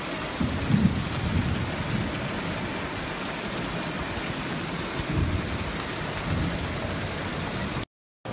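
Loud, steady rushing noise of a flash-flood torrent under heavy rain, with low rumbles about half a second in and again around five seconds. It cuts out abruptly just before the end.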